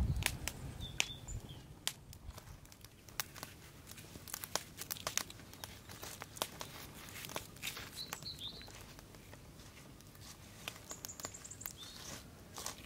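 Knife working a red onion held in the hand: dry papery skin crackling and the blade giving short sharp clicks as it peels and cuts. A few brief bird chirps sound over it.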